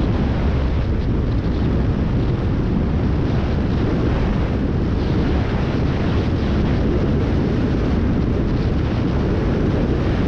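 Single-engine Cessna at full power on its takeoff roll and lift-off at high density altitude. The engine and wind noise make a loud, steady roar.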